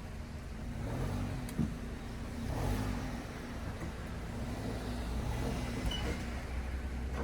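Motor vehicle engine running, a steady low hum whose pitch slowly wavers up and down.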